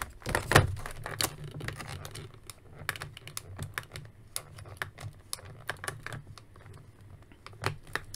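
Clear plastic blister packaging crackling and clicking as hands work an action figure and its ties free of the tray: irregular small clicks and crinkles, busiest right at the start and again near the end.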